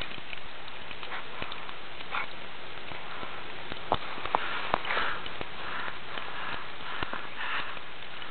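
An American Staffordshire terrier sniffing and snuffling with its nose in deep snow, in irregular soft puffs about once a second. A few sharp clicks about four seconds in.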